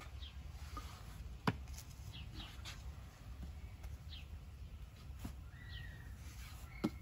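Quiet sounds of flatbread-making: a long thin wooden rolling pin working dough on a floured wooden board, with two sharp wooden knocks, one about a second and a half in and one near the end. Short high bird chirps sound in the background.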